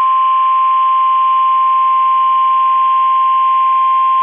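NOAA Weather Radio warning alarm tone: one steady 1050 Hz tone over faint radio hiss. It is the signal that an urgent warning, here a severe thunderstorm warning, is about to be broadcast.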